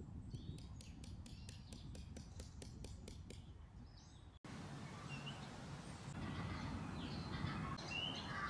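Light, even tapping of a peg hammer on a tent peg, about three or four taps a second. About four seconds in it cuts off suddenly and gives way to outdoor background with birds chirping.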